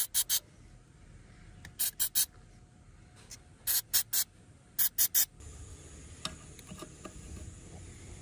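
Aerosol spray can being squirted in short hissing bursts, mostly three quick squirts at a time, repeated four times before it stops about five seconds in.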